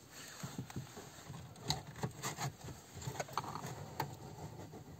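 Quiet clicks, taps and scraping of a single-DIN car stereo being released from its dashboard mounting sleeve with removal tools and pulled out.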